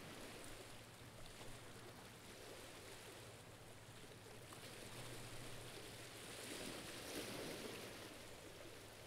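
Faint, even sound of small waves lapping on shoreline rock, swelling slightly about five seconds in and again near seven seconds.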